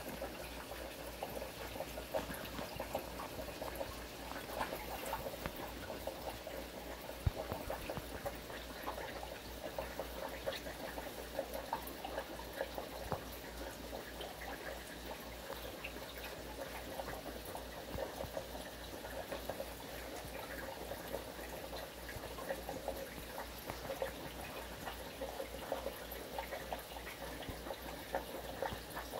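Steady bubbling and trickling of running water in a shrimp aquarium, full of tiny pops, with a low steady hum underneath.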